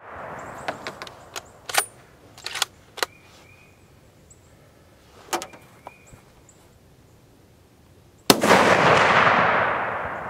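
A single shot from a scoped hunting rifle about eight seconds in, its report rolling away and fading over about two seconds. Before it come scattered light clicks and knocks from handling the rifle.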